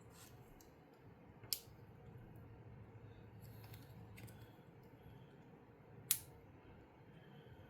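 Small plastic LEGO pieces clicking as they are handled and pressed together: two sharp clicks, about a second and a half in and about six seconds in, with fainter clicks between.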